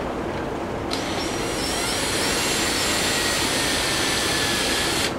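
Electric drill switched on about a second in and running for about four seconds, its pilot bit cutting a starter indentation into a brass bushing; a loud high whine that dips slightly in pitch as it bites, then stops suddenly. Low wind noise underneath.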